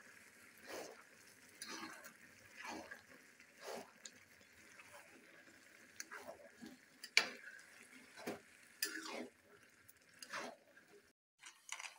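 Wooden spatula stirring grated carrot halwa in a large metal pan, scraping through the thick mixture about once a second, over the steady sizzle of the carrots and milk cooking.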